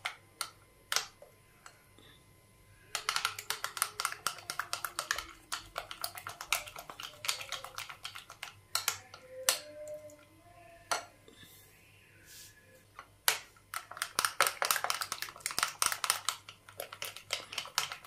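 A fork stirring a thick mayonnaise-and-yogurt sauce in a ribbed glass bowl, its tines clicking and scraping rapidly against the glass. The clicking comes in two spells, with a quieter pause of several seconds in the middle.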